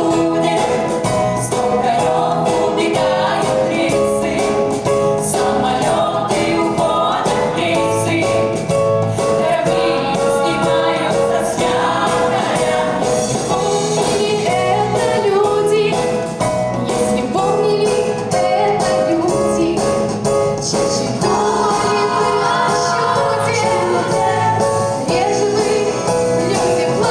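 Live song in Russian sung by a mixed group of women's and men's voices together, over band accompaniment with acoustic guitar and a steady beat.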